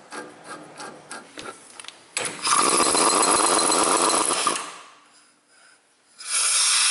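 Impact wrench hammering as it turns a bearing press tool to push a new front wheel bearing into the steering knuckle. It runs in two bursts, the first about two seconds in and the second near the end, with a short pause between. Before the first burst there are light clicks and rubbing as the tool is fitted by hand.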